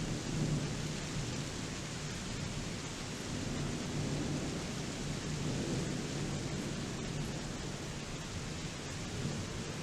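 Steady rain in a thunderstorm, with a low, continuous rumble of distant thunder underneath.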